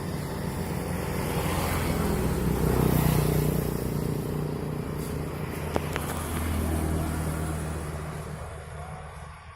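Motor vehicle engine running steadily on the move, with road and wind noise over it; it fades away near the end.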